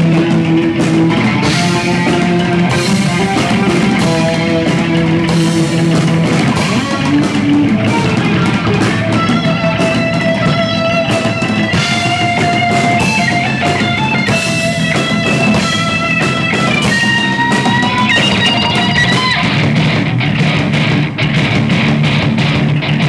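Live rock band playing loud: electric guitar and bass guitar over drums, with a guitar line of long held higher notes through the middle.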